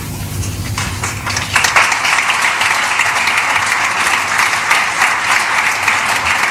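Audience applause: a few scattered claps at first, swelling about a second and a half in into dense, steady clapping.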